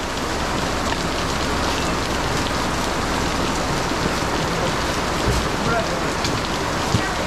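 Steady heavy rain falling on surfaces, an even, unbroken hiss.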